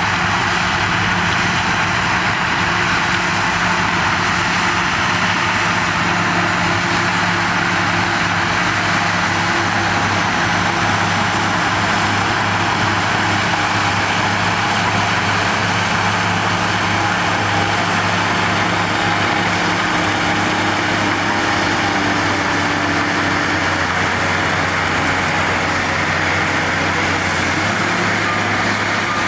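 Shantui DH17 bulldozer's diesel engine running steadily, with a constant low engine note and mechanical noise.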